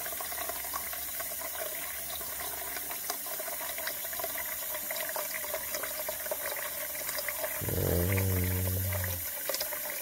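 A kitchen faucet runs a steady stream of water into the plastic base of a microwave egg boiler, filling it up to its water line. Near the end a low, steady hum sounds for about a second and a half over the running water.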